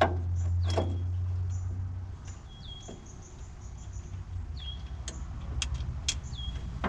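A low engine hum from a vehicle, loud for the first two seconds and then fading. A bird repeats a short call with a falling pitch several times, and a few sharp metallic clicks come from hand work at the fuel pump.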